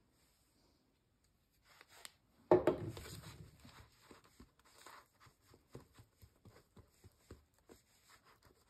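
A single knock about two and a half seconds in, then a metal spatula scraping and dabbing thick acrylic paint around a paper plate in quick, short, faint strokes.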